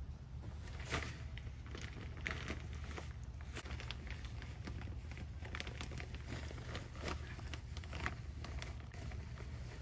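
Large plastic bag of sand crinkling and rustling as it is carried in and set down, with footsteps on dirt, in irregular crackles and scrapes over a steady low background rumble.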